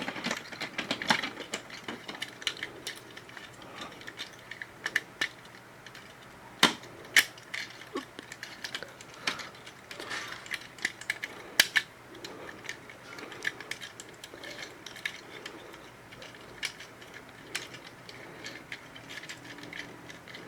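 Plastic parts and ratcheting joints of a Transformers Studio Series action figure clicking and snapping as it is handled and transformed. The clicks are irregular, with a few sharper snaps about a third of the way in and just past halfway.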